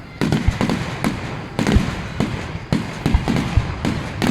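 Aerial fireworks exploding in rapid succession, about two to three sharp bangs a second, several with deep booms.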